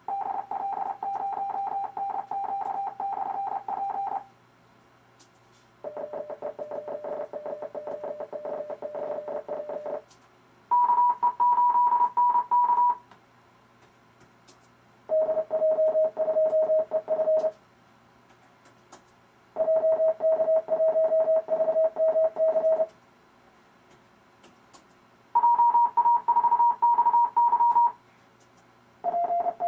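RufzXP Morse code trainer sending amateur radio callsigns as computer-generated CW: a fast keyed tone of dits and dahs, one callsign per burst of a few seconds with short pauses between. Seven callsigns come in turn, the last starting near the end. Each is at a different pitch, from about 600 Hz to about 1 kHz.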